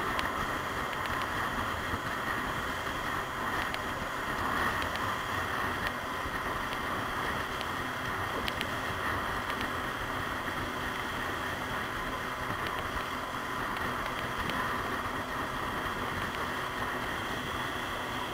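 Small open skiff running under outboard power: a steady motor sound mixed with water rushing and spraying along the hull, and wind on the microphone.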